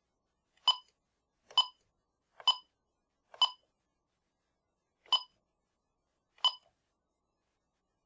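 Bosch alarm keypad beeping as its buttons are pressed: six short, identical beeps at uneven intervals, one for each key press while stepping through the programming menus.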